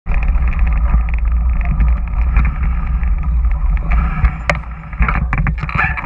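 Mountain bike ridden along a rough dirt trail: a steady low rumble of wind buffeting the microphone, with the bike rattling over the ground and sharp knocks now and then.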